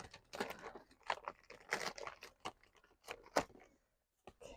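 Plastic wrapper of a suet cake being torn and crinkled open by hand: irregular crackles and rustles with a sharper snap about three and a half seconds in.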